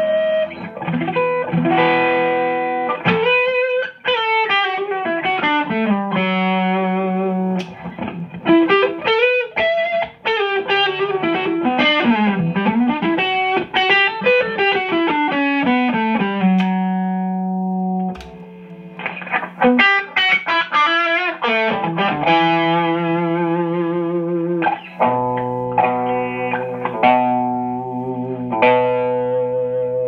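Electric guitar played through the D-amp amplifier chassis on test, checking its tone. Single-note lead lines with string bends and slides alternate with held notes and chords, with a short gap about eighteen seconds in.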